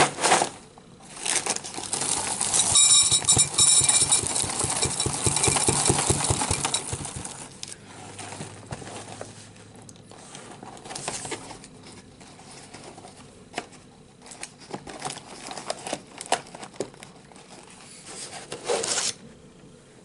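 Plastic inner bag of a cereal box crinkling and rustling, loud for the first several seconds, then lighter rustles and small clicks, with another brief crinkle near the end.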